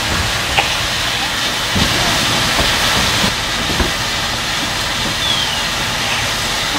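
Steady hiss and rumble of fire apparatus engines and pumps running at a working house fire, with a few faint knocks.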